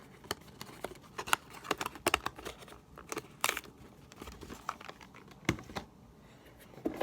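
Packaging crinkling and scraping with scattered clicks and taps as a puzzle cube is handled and put back into its box, with one louder scrape about halfway through.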